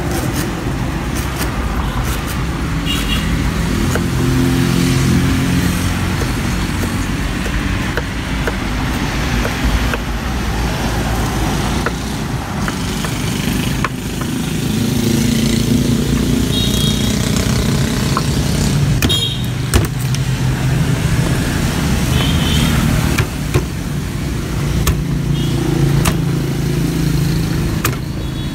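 Road traffic going by: vehicle engines running and passing, swelling and fading, heavier in the second half. Light knife taps on a wooden chopping board are scattered through it.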